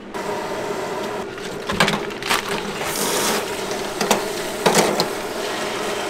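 Water running from a sink spray-head faucet onto a plastic bag, with a steady rush and several sharp plastic crinkles as the bag is handled.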